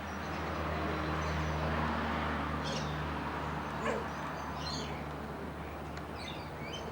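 Birds giving short, high chirps a few times over a steady low hum and background noise.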